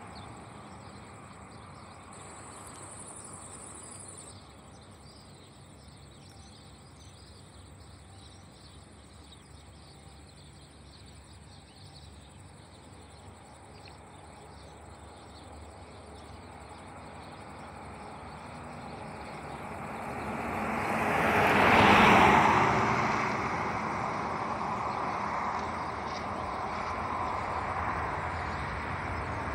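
Open-air roadside ambience with the faint hum of a distant airliner on final approach. A car passes close by on the road, swelling and fading about two-thirds of the way through as the loudest sound.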